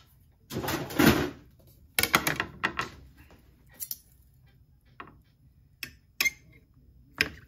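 Kitchen clatter while cutting up boiled chicken: a brief scraping sound about half a second in, then scattered knocks and clicks of a knife, utensils and dishes at irregular intervals.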